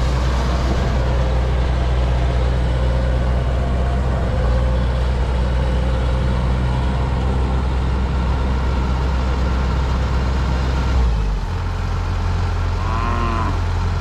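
Diesel engine of a Kubota DC-105X combine harvester running steadily, its note changing about eleven seconds in. A short wavering call near the end.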